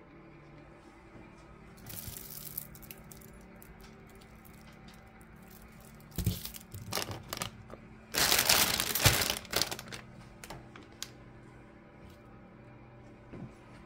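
Plastic food packaging crinkling as it is handled: a short rustle about two seconds in, a few more around six to seven seconds, and the loudest, about a second and a half long, just after the eight-second mark.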